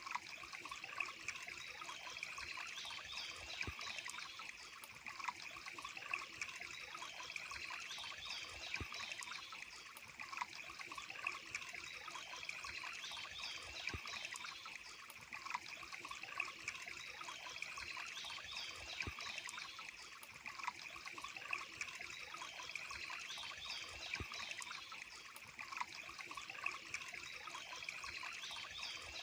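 A small stream trickling steadily, with occasional sharper drips or splashes.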